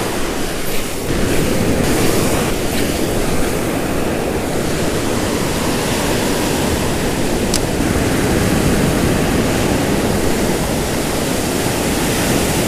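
Ocean surf breaking and washing up the beach close by: a steady rushing noise.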